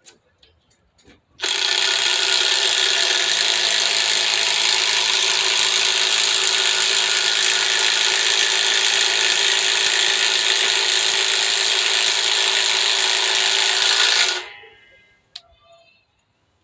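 Cordless impact driver running with a continuous rapid rattle from its impact mechanism for about 13 seconds, then winding down. A single click follows.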